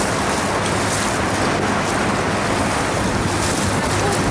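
Motorboat under way over choppy river water: a steady engine hum under the rush of water along the hull, with wind buffeting the microphone.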